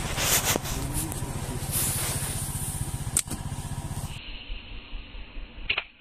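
A motor engine running steadily with a low, even throb and a few clicks, which drops away after a cut; near the end a short sharp smack as a slingshot stone strikes the canal water and splashes.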